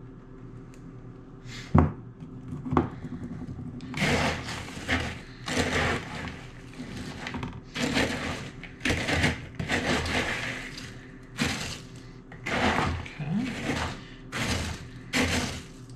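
Wooden spoon stirring a large bowl of Rice Chex cereal coated in melted chocolate and peanut butter: repeated rustling, scraping strokes of the coated cereal, one or two a second from about four seconds in. Two sharp knocks come before the strokes start.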